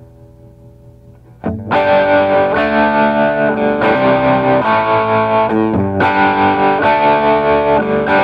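Les Paul-style electric guitar with Southern Cross humbucker pickups, 50s Les Paul wiring and linear 500k pots, played through an amp. A faint ringing chord gives way about a second and a half in to a loud strummed chord progression, the chords changing every half second to a second.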